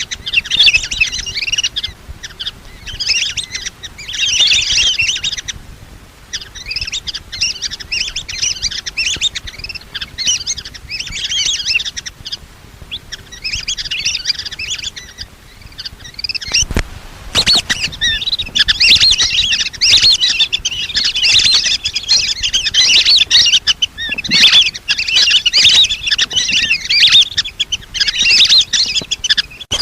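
Lesser whistling ducks calling: many high chirping whistles in bursts with short gaps, turning into near-continuous flock chatter from a little past halfway. It is a decoy-call recording used to lure the ducks in.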